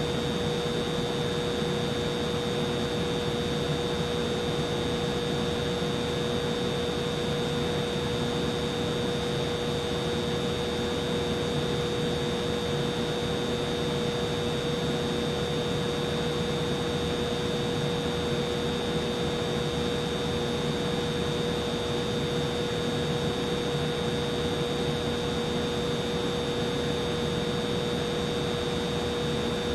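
Humidifier running with a steady motor hum and an even whirring noise, with a constant high whine above it.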